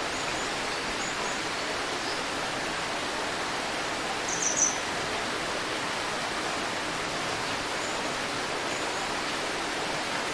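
River water flowing steadily, with a few short, high bird chirps scattered through it and a louder quick run of chirps about four and a half seconds in.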